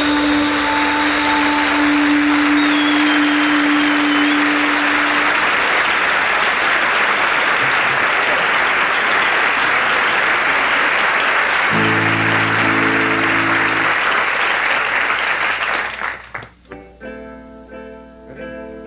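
A studio audience applauds steadily while the final held chord of a song fades out; a short chord sounds about 12 seconds in. The applause dies away about 16 seconds in and a picked guitar starts the next song's intro.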